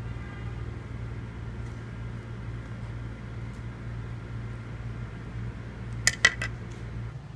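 A metal utensil clinking against a steel tray, three or four quick clinks about six seconds in, over a steady low hum.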